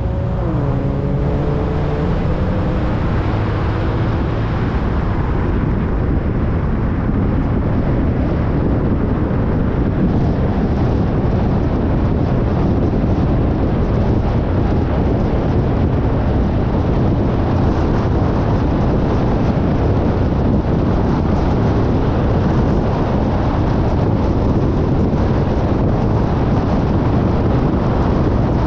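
Car accelerating. The engine's pitch climbs, drops at a gear change just after the start, and climbs again for a couple of seconds. Then it settles into steady road and wind noise at cruising speed.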